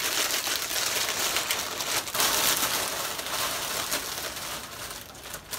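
Clear plastic packaging crinkling and rustling as a garment is handled and pulled out of its bag, easing off near the end.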